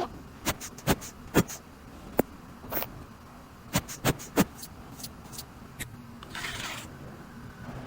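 About a dozen sharp, irregular clicks and taps, as of small hard objects being handled, followed by a brief hiss about six seconds in.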